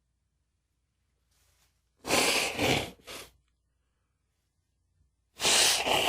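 A man sneezing twice in an allergy sneezing fit. The first loud sneeze comes about two seconds in, after a faint intake of breath, with a smaller follow-on burst just after it. A second sneeze starts near the end.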